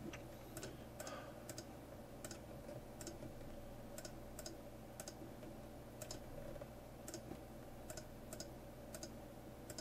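Computer mouse clicking at an uneven pace, about two sharp clicks a second, over a faint steady hum.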